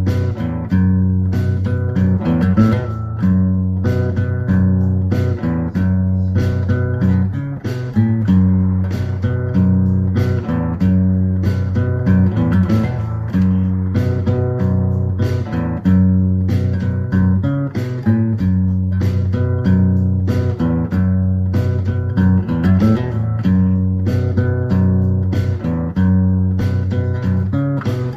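Background music: guitar with a steady bass line and a regular beat.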